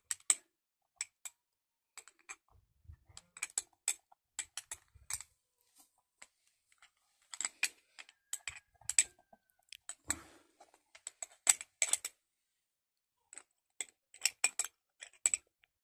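A small spoon clicking and scraping against a glass jar as mushroom spawn is scooped out, in irregular clusters of sharp clicks.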